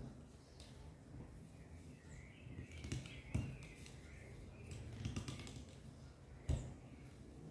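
Wooden rolling pin rolling over dough on a table, with a few dull knocks. Birds chirp faintly in the background about two to three seconds in.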